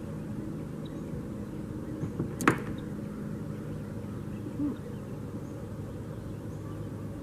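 A single sharp knock about two and a half seconds in, just after two lighter taps, over a steady low background hum.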